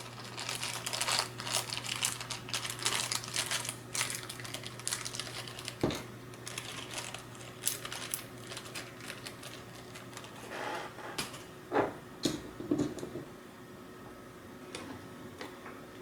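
Hands handling the small plastic and metal parts of a robot kit (servo horns, bolts, tools), giving quick clicks, taps and rattles. There is one louder knock about six seconds in, over a faint steady hum.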